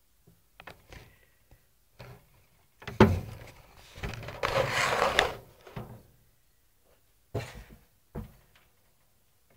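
A sharp knock, then a second or so of rustling and scraping, then two dull thumps near the end: close handling or bumping noises.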